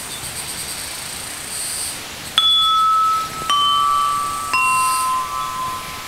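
A high, glittering shimmer of small chimes, then three tuned metal chime bars struck one after another with a mallet, each note a step lower than the last and left to ring.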